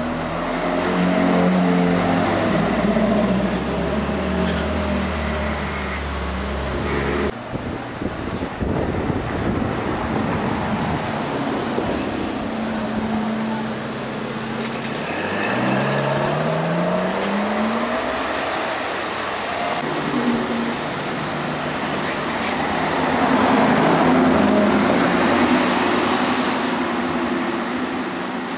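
Supercar engines passing one after another: a Ferrari F430's V8 running by, then an Aston Martin and others accelerating away with the engine pitch climbing through the gears, and a louder pass near the end.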